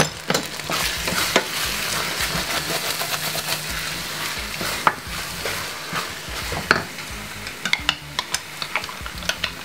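Chili con carne sizzling in a stainless steel saucepan as a wooden spoon stirs it. The spoon knocks and scrapes against the pan now and then, more often near the end.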